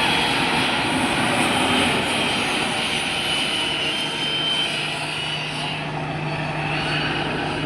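Helicopter turbine engine and rotor running: a steady, noisy drone with a thin high whine. A low steady hum joins about halfway through.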